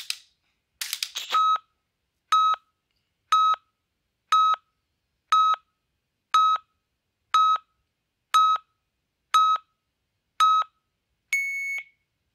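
Electronic countdown beeps from a LaserHIT laser dry-fire training app: ten short beeps about one a second, then one longer, higher beep near the end that signals commence firing. A click and some handling noise come before the beeps.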